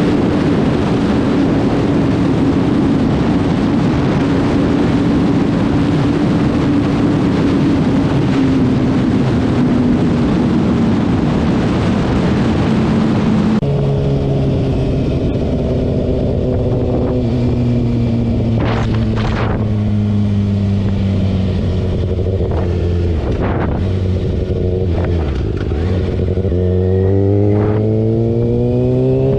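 Kawasaki ZX-6R 636 inline-four engine on the move, heard from a helmet- or bike-mounted action camera. For the first half heavy wind rush covers the engine; then the wind noise drops away abruptly and the engine's note is clear, easing down and then climbing in pitch under hard acceleration near the end.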